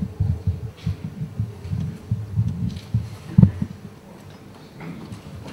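Rapid low, muffled thumps, about four or five a second, with one stronger thump about three and a half seconds in; they die away near the end.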